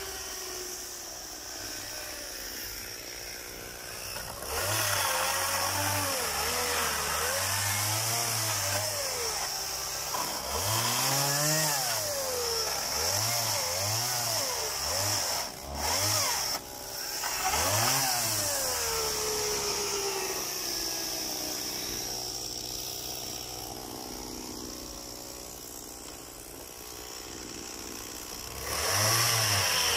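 Gasoline chainsaw cutting up wooden pallets. It idles for the first few seconds, then revs up and down again and again for about fifteen seconds through the cuts, winds back down to idle, and revs briefly once more near the end.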